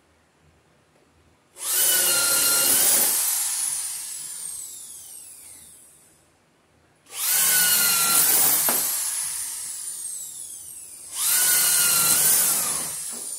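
Corded electric drill boring holes through wooden wall studs: three bursts of high motor whine, each winding down with a falling pitch after the trigger is let go.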